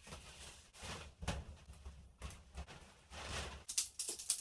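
Tent fabric and its bag being handled and rustling, a few separate rustles at first, then busier and crisper near the end.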